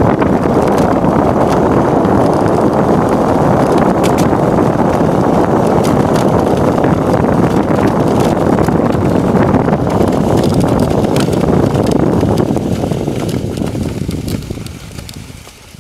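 Steering sled's runners rumbling and scraping over packed snow at speed downhill, with wind buffeting the microphone and scattered small ticks. The sound fades away over the last few seconds.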